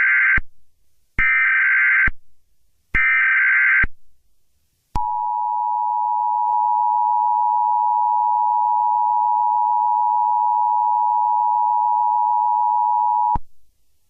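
Emergency Alert System tones: the end of one burst and two more one-second bursts of the SAME header's digital warble, encoding a Civil Emergency Message alert. About a second later comes the EAS two-tone attention signal, a steady dual tone held for about eight seconds before it cuts off sharply.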